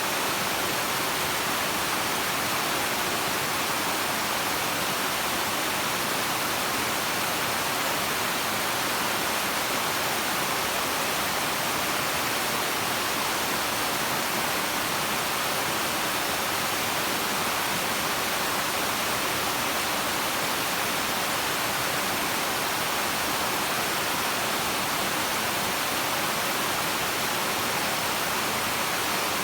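A waterfall running: a steady, even rush of falling water with no change in strength.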